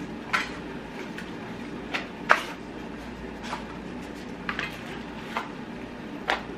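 Small travel utensil case being handled and opened: a scattered series of short clicks and taps, the loudest about two seconds in.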